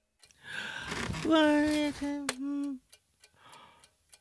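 A cartoon penguin's wordless voice: a breathy sound, then a held vocal tone at one pitch for about a second and a half, with a sharp click in the middle and a softer breathy sound near the end. An alarm clock ticks faintly underneath.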